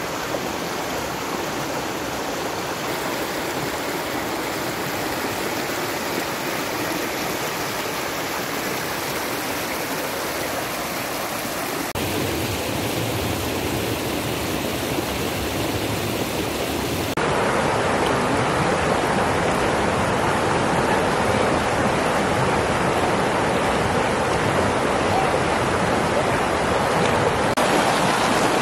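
River water rushing steadily. It gets abruptly louder twice, about twelve and about seventeen seconds in.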